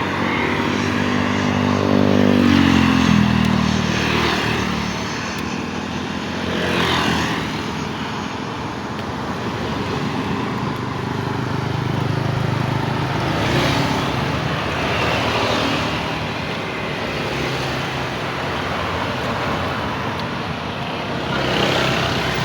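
Jet airliner engines roaring as the plane takes off, with a stack of whining tones that falls in pitch about two seconds in. Over it comes a steady low rumble that swells and fades several times.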